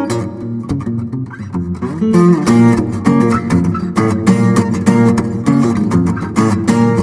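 Solo fingerstyle acoustic guitar playing a busy, rhythmic arrangement of plucked notes with sharp percussive slaps on the strings. It grows louder and fuller about two seconds in.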